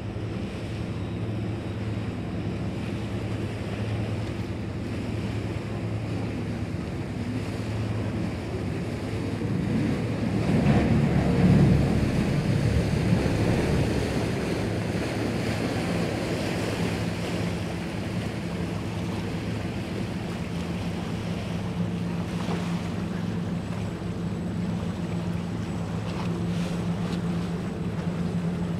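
Ferry's engine running steadily with a low hum, under rushing water and wind. A louder rush swells from about ten to fourteen seconds in and then settles.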